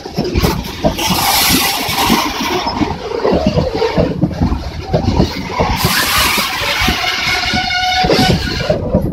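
Freight wagons of a goods train passing close by: steel wheels clattering rapidly and irregularly over the rail joints, with a loud rumble and gusts of rushing noise. Near the end a brief high-pitched ringing tone joins in, such as wheel squeal.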